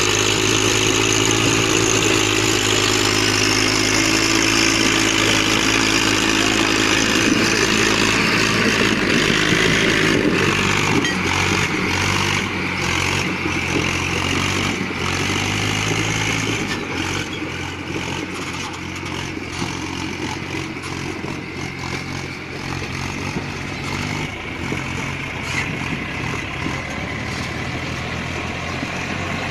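Massey Ferguson 1035 tractor's three-cylinder diesel engine running steadily under the load of a heavy sugarcane trailer, its note shifting about a third of the way in and settling a little quieter past the middle.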